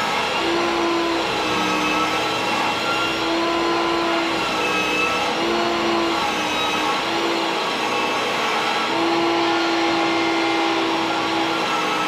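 A power tool's electric motor running steadily, its hum stepping slightly up and down in pitch every second or two as the load on it changes.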